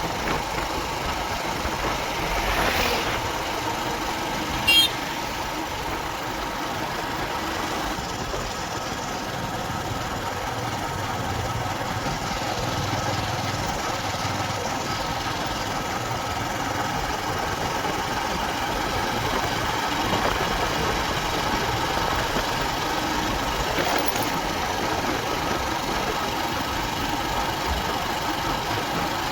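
Motorcycle engine running steadily while riding, with a brief sharp click about five seconds in.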